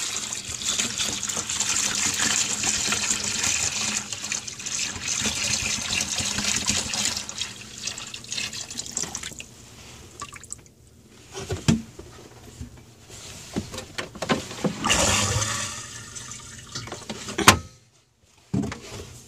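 Plumbing antifreeze pouring from a plastic jug into an RV toilet bowl for about ten seconds. A few seconds later the toilet is flushed and the liquid rushes down to the holding tank, followed by a sharp knock near the end.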